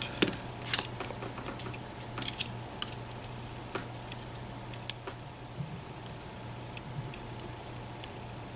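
Irregular small clicks and ticks of metal lock picks working inside an EVVA ICS lock cylinder as its sliders are probed in a gate test, with a couple of sharper clicks standing out.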